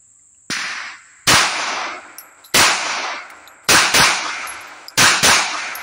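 Smith & Wesson 3953 double-action-only 9mm pistol firing: a fainter bang about half a second in, then six loud shots, two singles and then two quick double taps, each with a short echo. The pistol cycles through the string without jamming, with the aftermarket magazine's follower freshly oiled.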